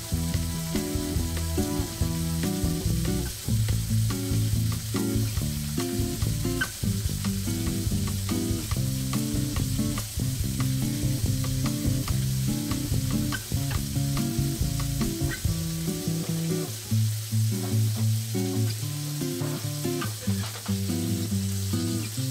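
Thick sirloin steak sizzling steadily in hot oil and melting butter in a Mauviel copper frying pan, with a few light clicks of a spoon against the pan toward the end as the steak is basted. Background music plays underneath.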